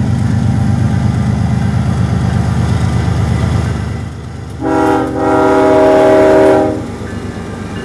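Union Pacific freight train's diesel locomotives passing close by with a deep engine and rail rumble. About halfway through, the train's air horn sounds several notes at once in a short blast, then a longer one.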